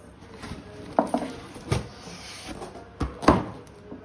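A gift box and its packaging being handled and opened: a few short knocks and rustles, the loudest a little after three seconds in.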